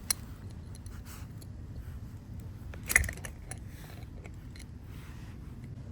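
Small metal clicks and handling noise as a coax cable's barrel splitter is worked loose: a sharp click right at the start, a louder one about three seconds in, and a few faint ticks between.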